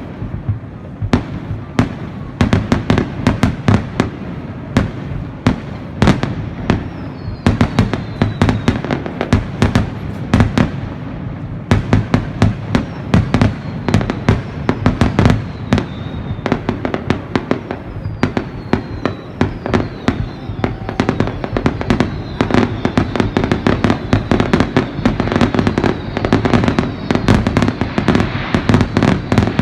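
Fireworks display: a rapid, continuous barrage of bangs and crackles over a low rumble, several per second throughout, with a few faint falling whistles.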